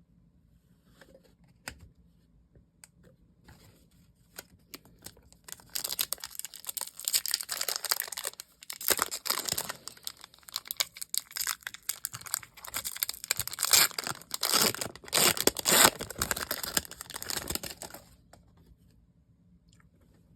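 Packaging being torn open and crinkled by hand: a few light clicks and rustles, then about twelve seconds of loud, continuous tearing and crinkling that stops abruptly near the end.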